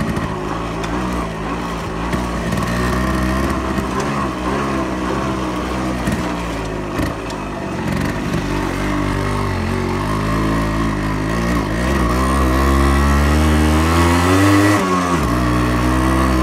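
Yamaha RX-100's two-stroke single-cylinder engine running as the bike is ridden, its revs rising and falling. Near the end the engine note climbs steadily, then drops sharply.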